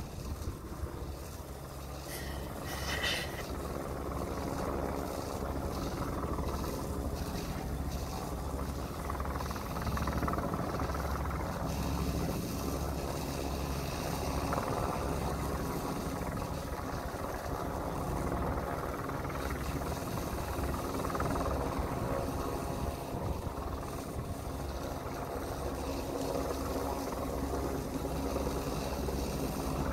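Large diesel engine running steadily with a low, throbbing hum, the sound of heavy apparatus working at the fire scene. About two to three seconds in there is a brief high-pitched sound.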